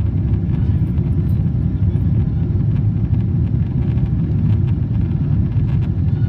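Steady low rumble of a Boeing 777's engines and airflow heard from inside the passenger cabin during takeoff or climb.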